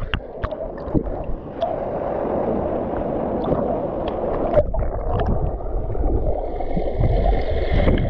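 Muffled water sloshing and gurgling close to the camera as someone swims, with scattered small clicks and knocks.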